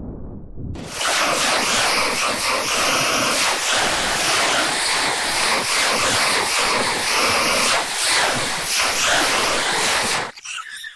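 A loud, steady rushing hiss that starts suddenly about a second in and cuts off abruptly near the end.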